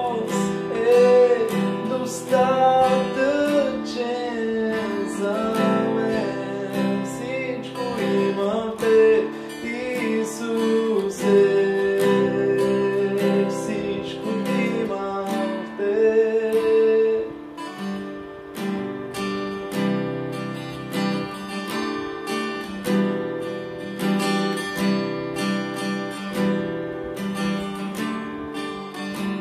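A man singing a worship song to his own strummed steel-string acoustic guitar. About two-thirds of the way through the singing stops, and the guitar strums on alone, a little softer.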